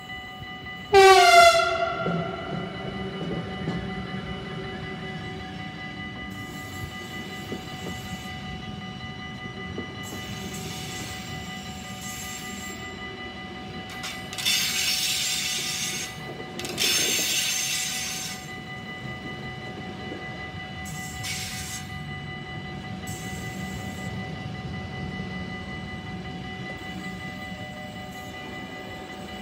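NS Siemens Vectron electric locomotive sounding one loud horn blast about a second in, then passing with its train of sleeper coaches, the wheels rumbling and clicking over the rails. Two loud rushing bursts come a couple of seconds apart midway through the pass.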